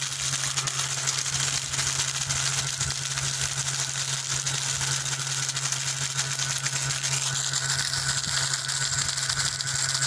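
Small electric motor of a homemade cardboard-box mixer grinder running steadily, humming with a buzzing rattle from the plastic jar held on top. A higher whine joins about seven seconds in.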